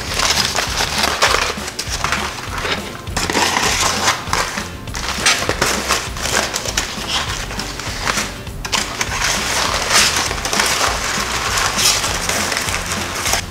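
Aluminium foil wrap crinkling and being crumpled by hand as it is peeled back, in dense crackly bursts throughout, with background music underneath.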